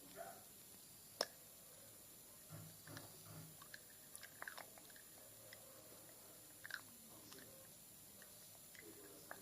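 Faint, irregular soft taps and clicks of close-up ASMR tapping and dripping, with one sharper click about a second in.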